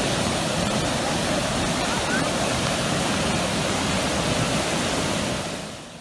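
Flash-flood torrent of muddy water rushing and splashing in a steady, loud rush that fades out near the end.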